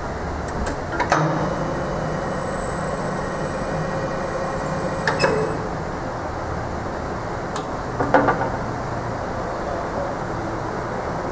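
Promaco RBM 2-40 angle roll running under power. A steady whine starts with a click about a second in and stops with another click about four seconds later, and a short cluster of clicks comes near the end, over a constant background noise.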